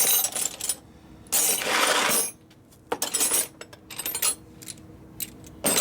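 Metal hand tools clinking and clattering against each other in several bursts, as they are sorted through; the longest clatter comes about a second and a half in.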